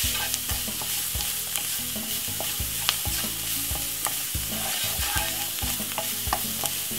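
Chopped onion, spring onion and curry seasoning sizzling in oil in a frying pan, stirred with a wooden spoon that gives irregular knocks and scrapes against the pan.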